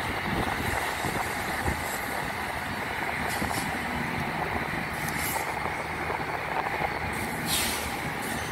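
Union Pacific diesel locomotive idling, a steady low engine rumble, with short hisses of air about three, five and seven and a half seconds in.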